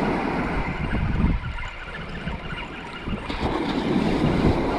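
Wind buffeting the microphone over surf on the beach, easing off for a couple of seconds in the middle.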